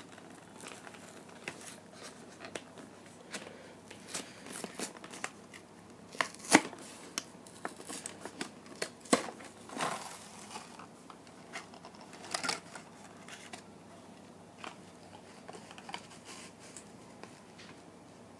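A toy-car blister pack being torn open by hand: the cardboard backing card tearing and the clear plastic bubble crinkling and crackling in irregular sharp snaps, the loudest about six and a half seconds in and again around nine seconds.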